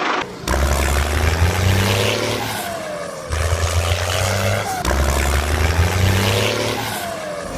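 Vehicle engine sound effect, running with a deep hum and a falling whine in a pattern that repeats about every five seconds.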